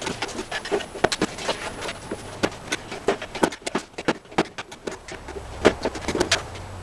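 Irregular clicks and light knocks of hands-on work with tools and parts, over a faint low hum that grows a little stronger near the end.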